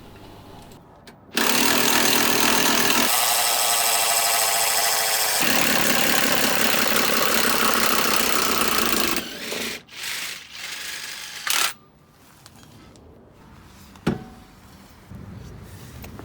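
A power tool running hard for about eight seconds, changing pitch twice, then a few short knocks and clicks.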